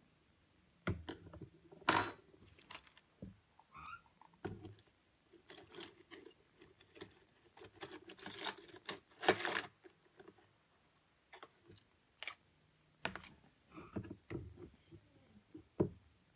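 Hand tools rattling and clinking as a screwdriver is picked out of a cup of tools, among the knocks and clicks of a DSLR camera body being handled. The sounds are faint and irregular, busiest in the middle.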